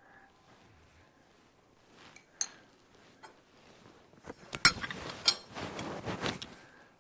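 Metal parts and tools being handled at a metal lathe: a few sharp clicks, then a quick run of louder metallic clinks and a second of scraping and rattling, with the lathe not running.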